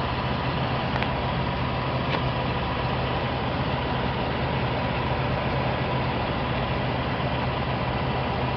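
Ford F-150's 5.4-litre V8 idling steadily at operating temperature, heard from underneath the truck, with a steady rush and hum that includes the electric radiator cooling fans running with the air conditioning on.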